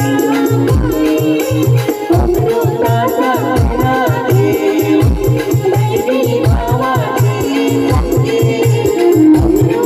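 Live stage band playing an upbeat song: a steady drum beat, a shaker-like rattle and keyboard melody, with a vocal line sung over it.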